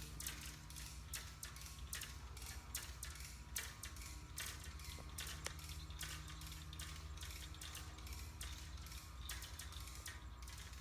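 Hand-cranked winch ratcheting as the antenna tram line is cranked tighter: quick, irregular pawl clicks over a steady low hum.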